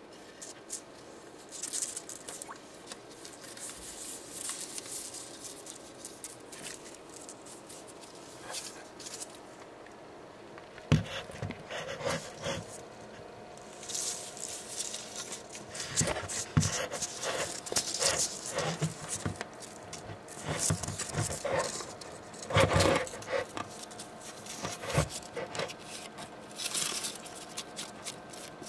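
Leopard geckos scrabbling over newspaper and a resin rock hide: irregular papery rustles, scrapes and claw taps, busier in the second half, over a faint steady hum.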